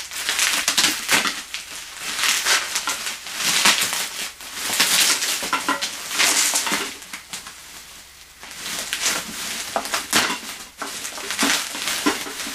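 Bubble-wrap packaging crinkling and rustling in repeated bursts as hands grip and turn the wrapped packages, with a quieter stretch about seven seconds in.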